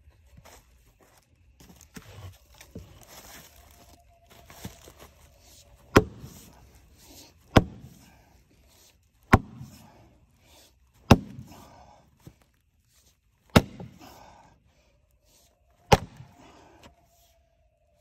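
Splitting maul striking a firewood round, six sharp chops roughly every two seconds, beginning about six seconds in. Before that there is quieter scuffing of footsteps.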